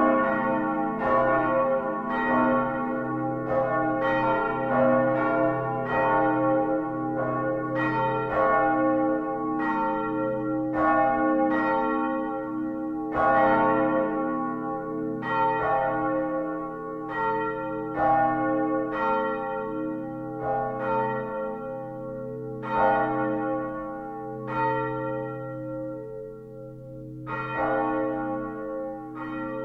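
Full peal of five bronze church bells cast in 1947 by Albert Junker of Brilon, tuned to D-flat, E-flat, F, A-flat and B-flat, swinging so their clappers strike about once a second, each stroke ringing on under the next. Heard close up inside the belfry; near the end the strokes come less often and the ringing grows quieter.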